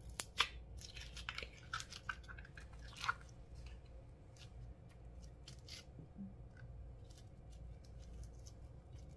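Slime being mixed by hand, giving sticky crackles and clicks that come thick in the first three seconds and then thin out to scattered ones.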